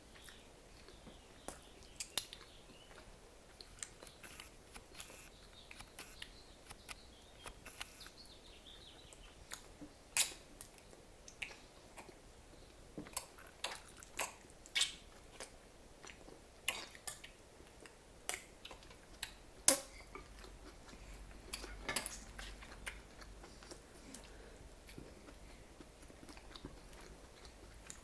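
A baby sucking and gnawing on his own hand, making irregular wet smacking clicks with pauses between them.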